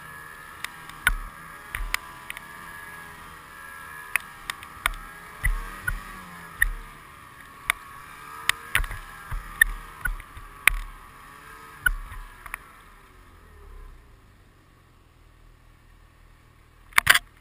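Snowmobile running along a bumpy snow trail, its steady engine note broken by frequent sharp knocks. About three quarters of the way through it eases off to a low idle.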